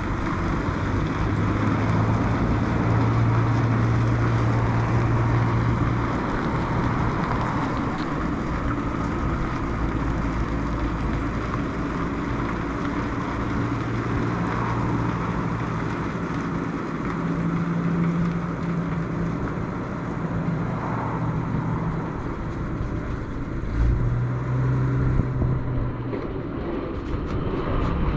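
WWII half-track's engine running as it drives slowly across gravel, its note rising and falling with the throttle, with a low thump near the end.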